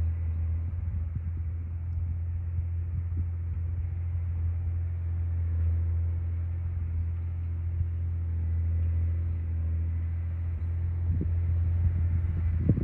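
John Deere 670 GP motor grader's diesel engine running steadily with a deep, even hum, with a few short knocks near the end.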